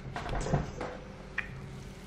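Hands pressing and patting raw ground-meat filling into a pastry-lined loaf mould: soft, squishy handling sounds in the first half second, then a single light click about a second and a half in.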